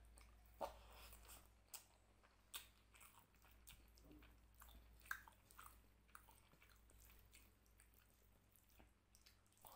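Faint close-up eating sounds: wet chewing and lip-smacking, with squishing as bare fingers mix basmati rice into mutton curry gravy, in a string of short sharp clicks and smacks.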